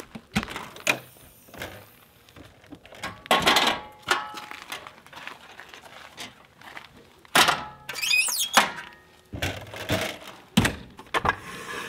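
An RV entry door and its folding metal entry steps being handled, giving a run of thunks, knocks and rattles. A short high metallic squeak comes about eight seconds in.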